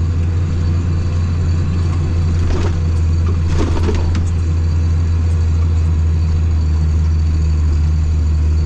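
Case tractor's diesel engine running at a steady drone, heard from inside the cab while pulling a silage dump cart through the field. A few brief scratchy rattles come about two and a half to four seconds in.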